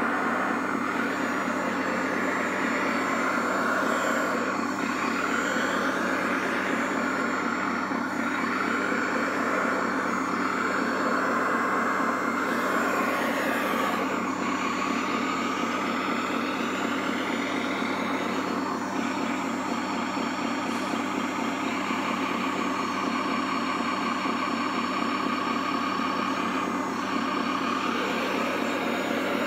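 Radio-controlled model wheel loader working: several motor whines rise and fall in pitch as it drives and lifts its bucket, over a steady engine-like hum.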